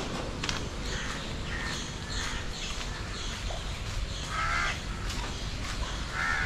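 Crows cawing: a series of short harsh calls, the loudest about four and a half seconds in and again near the end, over a low steady rumble.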